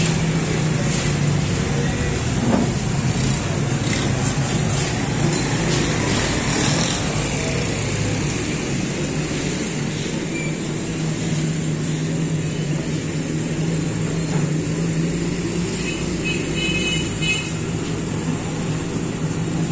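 Steady street traffic noise with a low, constant hum underneath, and a few short high-pitched tones about sixteen seconds in.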